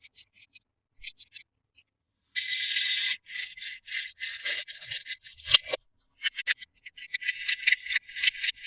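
Plastic toy packaging being handled and opened: quick bursts of crinkling and scratching, a longer continuous rasp about two and a half seconds in, and a sharp click a little after five seconds.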